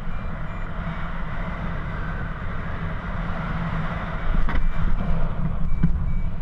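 Wind rushing over the camera microphone in paragliding flight, a steady low rumble. Over it come a paragliding variometer's short, evenly spaced beeps, the sound that signals rising air. The beeps fade through the middle and return for the last couple of seconds.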